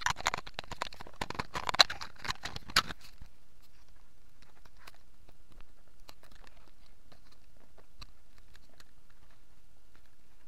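Close crackling and rustling for about three seconds, then only scattered faint clicks over a low steady hiss.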